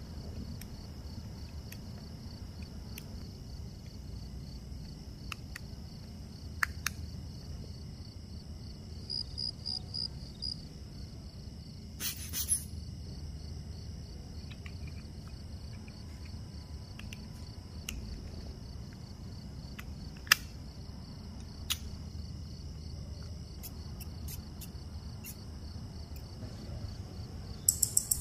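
Quiet watch bench: a faint steady hum and thin high whine, broken now and then by small sharp clicks of metal watch parts being handled and fitted. Near the end, a quick run of sharp ticks starts: a Cartier automatic movement beating at 28,800 per hour on a timegrapher's microphone.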